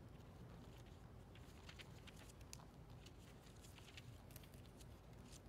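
Near silence: faint scattered rustles and flicks of thin Bible pages being leafed through, over a low steady room hum.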